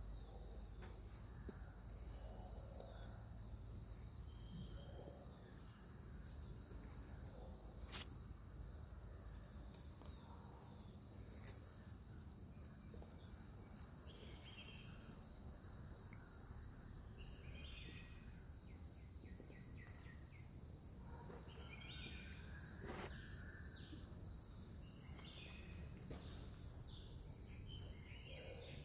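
Faint ambience of a steady, high insect drone, with scattered short bird chirps, more of them in the second half. A single sharp click about eight seconds in is the loudest moment.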